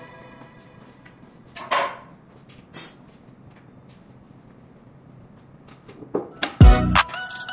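Two short knocks from a paint roller on an extension pole being picked up and handled at a paint bucket, over quiet room noise. Near the end, background music with deep bass beats comes back in.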